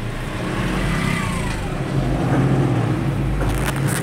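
Diesel vehicle's engine running, with road noise, heard from inside the cab as it drives off; it grows louder about two seconds in.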